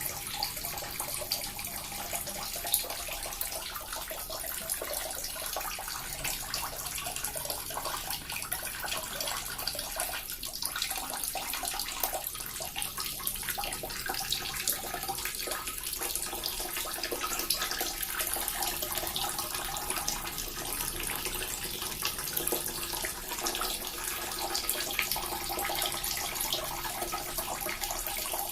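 Small water fountain running steadily: a continuous splashing and trickling of falling water.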